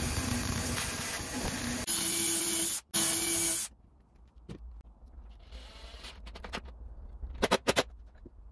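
Bandsaw cutting a wooden dowel, running loudly for about the first three and a half seconds with a short break in the cut. Then quieter drilling work, and a quick run of sharp clicks near the end from a cordless drill at work.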